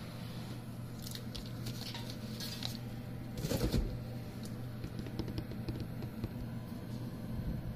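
Light clicks and taps of parts being handled while the laser machine's screen assembly is taken apart, with one louder clatter about halfway through. A steady low hum runs underneath.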